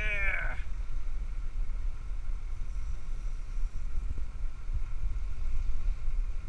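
Steady low rumble of the sportfishing boat's engine and wind on the microphone while it idles during the fight with a hooked fish. A short rising-and-falling shout is heard right at the start.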